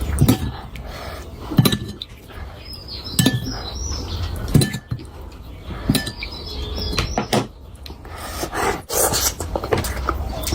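Someone eating a curry meal, with clinks against a plate or dish and small eating noises. Sharp clicks come about every second and a half over a steady low hum.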